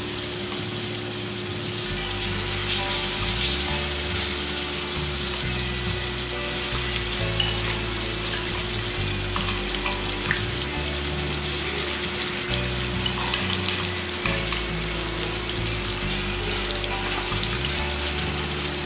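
Marinated chicken pieces sizzling in hot oil in a frying pan: a steady hiss with scattered small crackles and pops.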